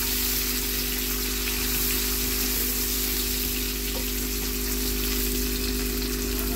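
Chopped onions and cumin seeds sizzling steadily in hot oil in a pan while being stirred and sautéed with a silicone spatula, an even frying hiss. A steady low hum runs underneath.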